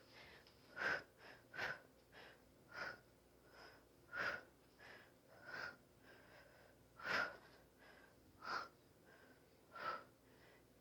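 A woman's hard, rhythmic breathing under exertion: short, forceful breaths roughly one every second or so, through a set of side plank hip dips.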